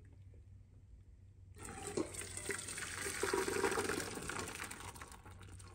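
Boiled soybeans and their cooking water poured from a stainless steel pot into a metal mesh colander: a splashing rush of water with the patter of beans, starting about one and a half seconds in, swelling, then tailing off near the end.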